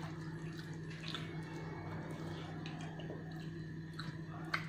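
Soft wet squishing and faint clicks of fingers working rendang on a stainless steel tray, with a small sharp click near the end, over a steady low hum.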